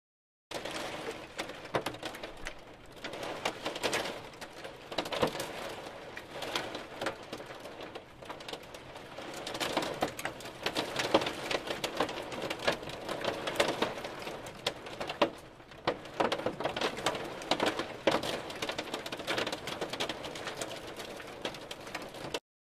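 Hail sound effect: a dense, irregular clatter of countless small hailstone impacts that swells and eases. It starts abruptly and cuts off suddenly near the end.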